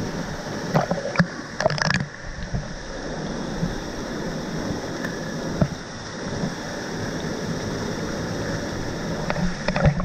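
Waterfall pouring into a plunge pool close by, a steady rush of falling water, with a few brief sharp knocks about one to two seconds in and again near the end.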